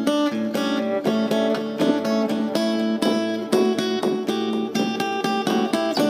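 Steel-string acoustic guitar picked with the fingers and played through a delay effect pedal, with a steady run of plucked notes ringing over one another.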